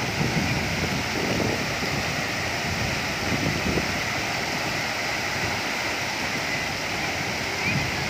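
Tall waterfall plunging into a pool: a steady, even rush of falling water.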